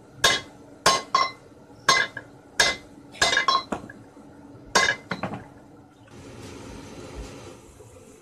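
Small sledgehammer striking a heated 19 mm deformed steel rebar to straighten it, about a dozen sharp ringing metallic blows, some single and some in quick doubles and triples. The blows stop about six seconds in, and a steady hiss follows.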